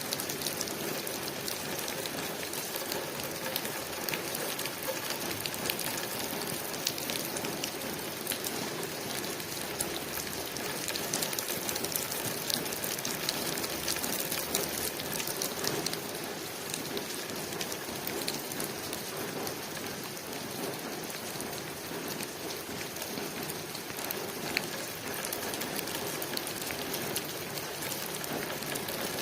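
Rain falling steadily on a window pane: a dense, even hiss dotted with many small drop ticks.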